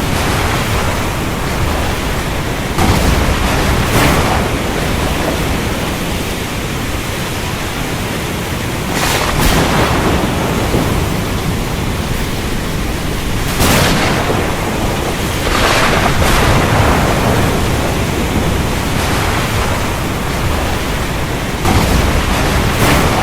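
Heavy, steady rain with thunder cracking sharply several times over it, each crack rumbling off into the downpour.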